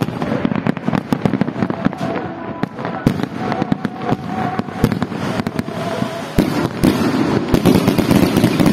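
Aerial fireworks display: a dense, continuous barrage of bangs and crackles from bursting shells, growing louder about six and a half seconds in.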